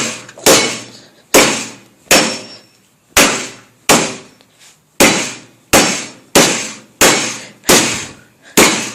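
A hammer striking a Master combination lock clamped in a vise, about a dozen steady blows roughly one every 0.7 s, each a sharp metallic knock with a short ring. The pounding is knocking the dial end off the lock.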